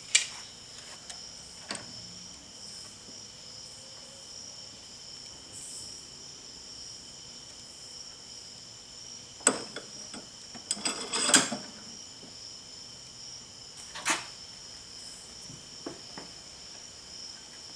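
Scattered metal clinks and knocks as a steel socket and wiper arm are set between the jaws of a bench vise and the vise is tightened to press a bushing in, the loudest a quick cluster about ten to eleven seconds in. A faint steady high-pitched whine sits underneath.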